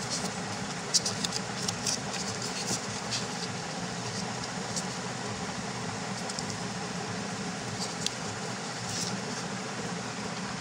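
Thin paper rustling and crinkling in short bursts as a small strip is folded and creased by hand, most busily in the first few seconds and again near the end. Under it runs a steady background hum.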